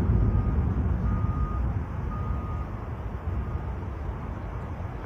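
The rolling, fading rumble of a missile strike's explosion, dying away over the first two to three seconds. Over it, a high electronic beep sounds four times, about once a second.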